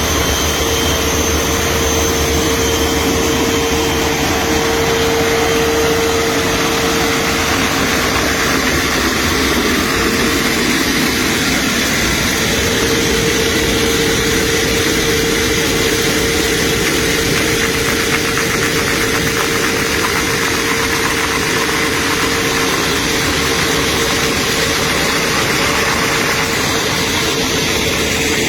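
Floor surface-preparation machine running steadily while stripping a coating off a concrete floor: a loud, even mechanical noise with a steady mid-pitched hum.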